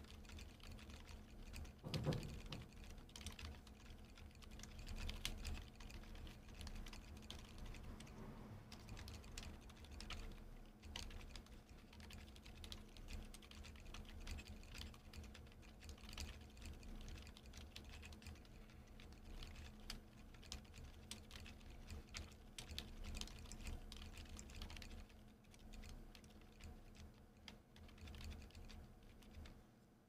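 Continuous quiet typing on a mechanical keyboard with Haimu Heartbeat silent linear switches in a top-mounted polycarbonate plate with no foam, under PBT keycaps: soft, muted keystrokes with no sharp bottoming-out clack, and one louder knock about two seconds in.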